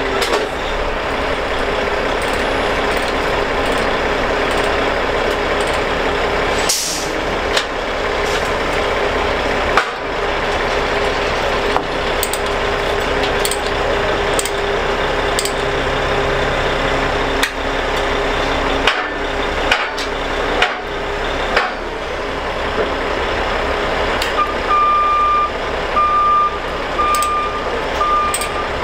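A heavy truck's engine running steadily, with scattered metal clanks and a short burst of air hiss about a quarter of the way through. Near the end a reversing alarm starts beeping steadily, about once a second.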